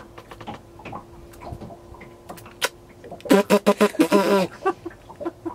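Faint clicks and handling noise. About three seconds in, a woman makes a quick string of loud wordless vocal sounds with bending pitch, a reaction to the mackerel held up close to her.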